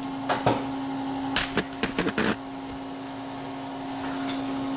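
A series of sharp knocks and clatter, about seven in the first half, as hardware is handled, over a steady electrical hum.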